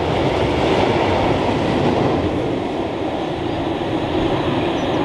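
Rear wagons of a freight train loaded with timber logs rolling past, a steady rumble of wheels on the rails as the end of the train goes by and draws away.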